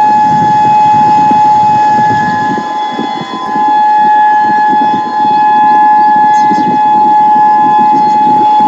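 Emergency Alert System attention signal: a loud, steady two-tone alarm held without a break, over a rough noisy layer.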